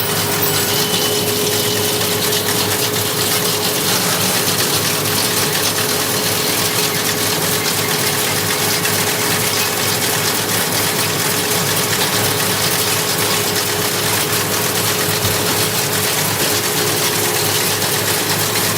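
Tractor and round baler running steadily, heard from inside the tractor cab while baling hay: a dense mechanical clatter over a steady engine hum.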